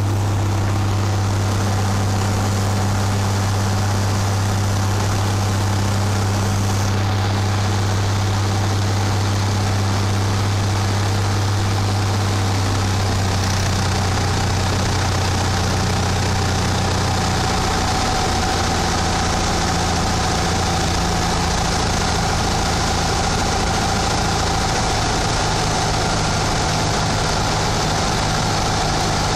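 Cessna 172's piston engine and propeller droning steadily, heard from inside the cabin on final approach to the runway. The engine note shifts a little a bit over halfway through.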